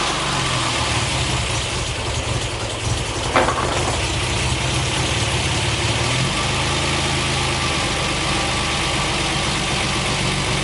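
1968 MGC's 2.9-litre straight-six engine idling steadily just after a start, run to circulate fresh water through the cooling system for a flush. A brief sharp click comes about three and a half seconds in, and the idle note shifts slightly about six seconds in.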